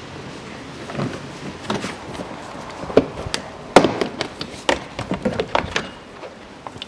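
Plastic wheel-arch liner of a Nissan X-Trail being pried loose with a hooked tool and bent back by hand: a run of sharp plastic clicks and knocks, loudest about three to four seconds in.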